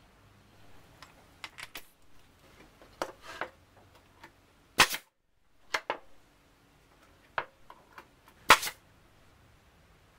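Irregular sharp knocks and clicks of small wooden pattern pieces being handled, tapped and set down on a workbench. The two loudest knocks come about halfway through and near the end.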